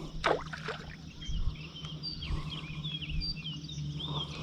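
Birds chirping and singing, a quick run of short warbling notes from about a second in, over a faint steady low hum.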